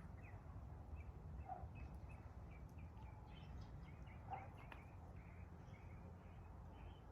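Faint birds chirping, many short chirps spread throughout, over a low steady background rumble.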